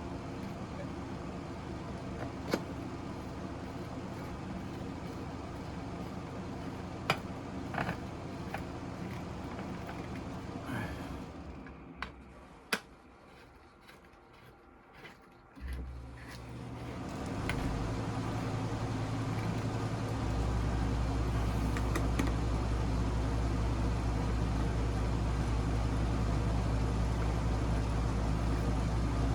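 Sharp clicks of parts being handled, then, a little past halfway, a Hiblow HP-80 linear diaphragm septic air pump starts up and runs with a steady low electrical hum that builds for a few seconds and then holds even.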